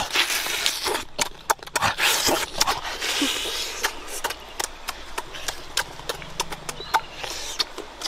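Close-up eating of roasted chicken: biting and chewing the meat, with many short wet mouth clicks and smacks throughout.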